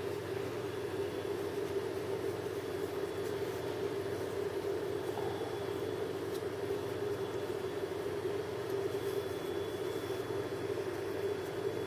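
A steady low mechanical hum, even throughout, like a fan or other motor running.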